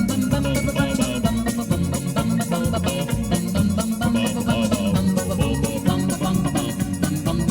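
Rock-and-roll band music with a steady beat and an organ-like keyboard part, played between sung lines.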